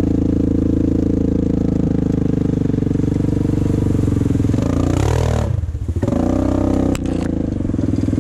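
A Yamaha Grizzly 700 ATV's single-cylinder engine running at a steady speed close to the microphone. About five seconds in, its note wavers and drops briefly as the throttle eases, then settles steady again.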